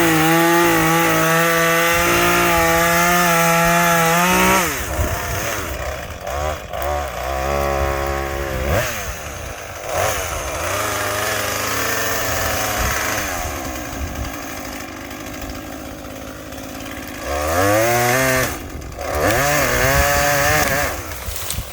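Small chainsaw engine run at full throttle for about four seconds, then dropping to idle. It is revved up again briefly three times, once about halfway through and twice near the end.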